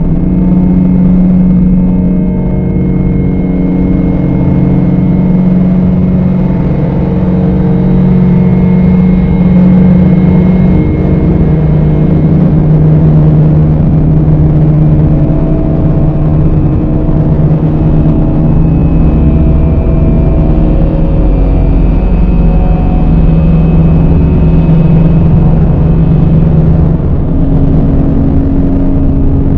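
Dark ambient drone music: dense low held tones layered over a deep rumble and a noisy haze. The held pitches shift every several seconds, and the rumble grows heavier past the middle.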